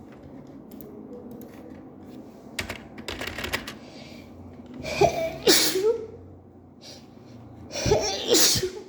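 A woman sneezing twice, about three seconds apart, from an allergy attack. Each sneeze is a short voiced intake that glides in pitch, then a sharp explosive burst. A few light clicks come a couple of seconds before the first sneeze.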